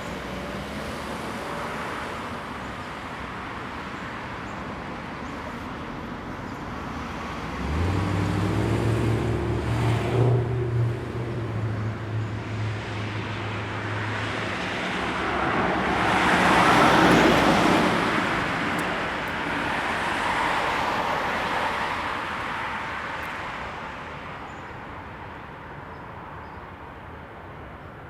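Traffic on a busy main road: a steady wash of cars passing. About eight seconds in, a low engine drone joins for several seconds. Around seventeen seconds a vehicle passes close and loud, and the traffic thins toward the end.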